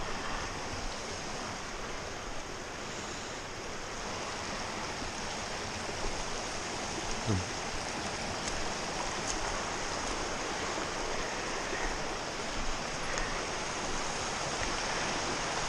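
A small, rocky brook flowing over stones and little cascades: a steady rushing of water. A brief low thump comes about seven seconds in.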